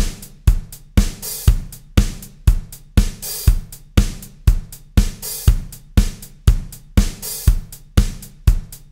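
Programmed drum-kit pattern playing back in GarageBand: a kick drum on every beat, about two a second, with hi-hat ticks and snare hits between, and a longer bright hiss about every two seconds.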